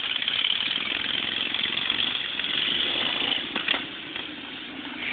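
Racing lawn mower engines running steadily on the track. A single sharp knock comes about three and a half seconds in, and the engine noise is a little quieter after it.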